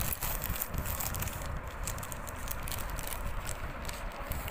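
Plastic courier mailer bag crinkling and rustling in the hands as it is handled and opened, with irregular crackles.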